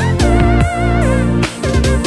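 Background music: a wavering lead melody over guitar and held bass notes, with a regular beat.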